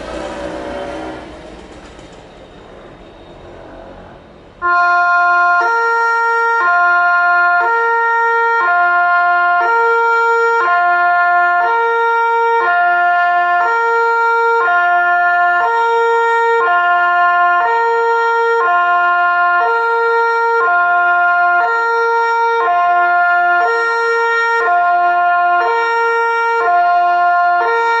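Kockum Sonics TYFONIC Delta 2 electronic siren sounding the Swiss Cis-Gis two-tone fire alarm. It cuts in suddenly a few seconds in, at full volume, and alternates steadily between two pitches about every half second. Before it starts there is a short stretch of fading background noise.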